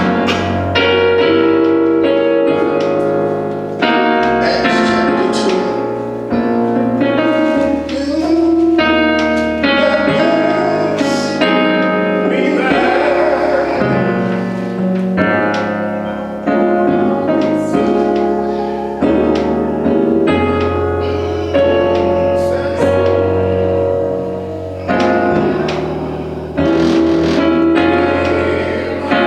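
Gospel music: piano or keyboard chords with a bass line and a singing voice.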